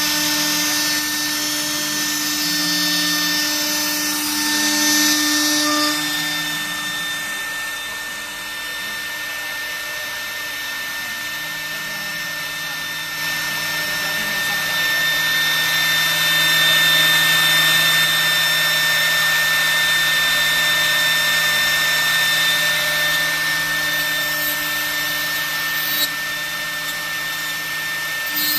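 A 3 kW HSD spindle on a CNC router running at speed, its bit cutting into a Corian sheet: a steady high whine over the rasp of the cut, louder in the second half.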